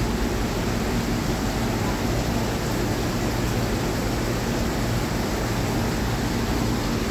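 Steady, unchanging rushing noise with a low hum underneath.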